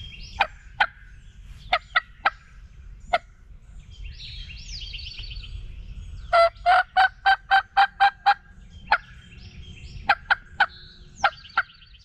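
Turkey yelps and clucks: scattered sharp single clucks, a run of about nine yelps at roughly four to five a second in the middle, then a few more clucks near the end.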